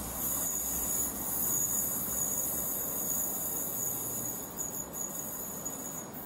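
Northern Ireland Railways Class 4000 diesel multiple unit running away round a curve, with a steady high-pitched squeal from its wheels on the curved track over a low rumble that fades out about four seconds in.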